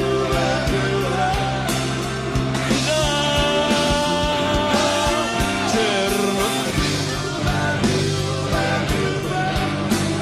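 Rock music played by a band: a steady drum beat and bass, with a held, wavering lead melody in the middle.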